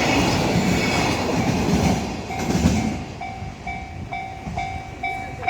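Container freight train running past on the tracks, its wagons rumbling and clacking, fading over the first few seconds. As it fades, a level crossing warning bell comes through, ringing about twice a second.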